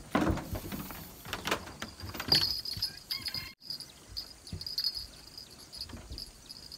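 Insects chirring with a steady high-pitched, pulsing trill from about two seconds in. A few sharp knocks sound in the first half.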